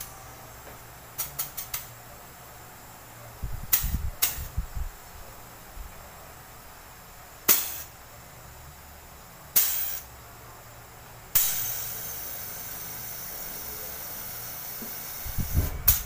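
Pressurised gas hissing out of a refrigerator's refrigerant lines while the system is purged. The hiss comes as four short blasts, then a steadier hiss for about four seconds, with light metallic clicks of hose fittings and valves at the start and the end.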